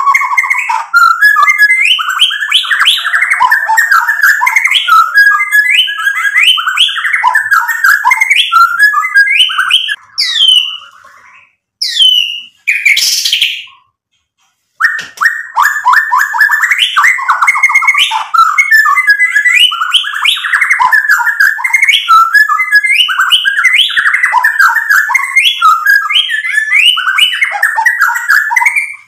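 Male white-rumped shama (murai batu) singing a fast, continuous run of varied chattering and whistled phrases, the full 'gacor' song used to provoke other shamas into singing. About ten seconds in the song breaks into a few separate rising whistles and a second of silence, then the dense song resumes.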